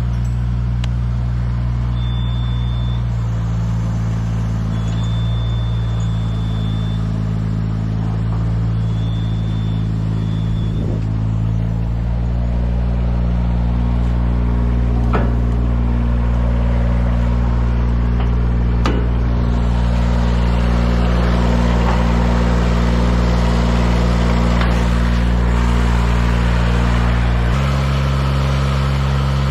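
An engine running steadily, its pitch shifting to a new steady level a few times.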